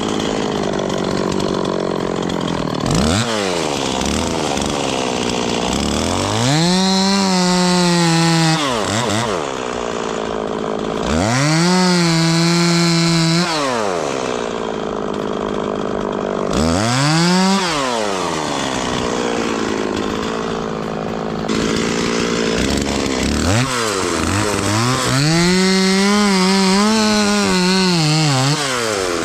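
Two-stroke chainsaw revving from idle to full throttle and dropping back about four times, holding a steady high pitch at each peak as it cuts into a tree, idling in between.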